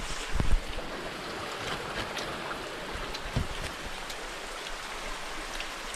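Steady rush of running water, with a few faint clicks and a soft low knock about half a second in.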